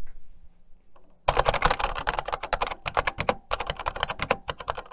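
Unicomp Model M buckling-spring keyboard being typed on fast, a dense run of loud clicks from the springs buckling under each key. The typing starts about a second in, after a near-quiet moment, and breaks off briefly about halfway through.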